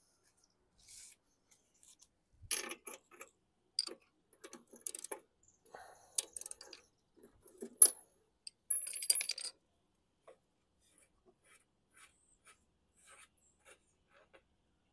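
Metal clinks and taps of a ratchet and spark-plug socket being handled and fitted onto a lawn mower engine's spark plug, with a short rapid clatter about nine seconds in and only faint ticks after that.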